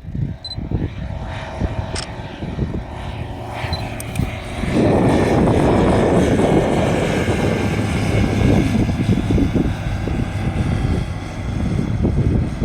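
Light single-engine propeller aircraft running. It gets sharply louder about five seconds in and stays loud.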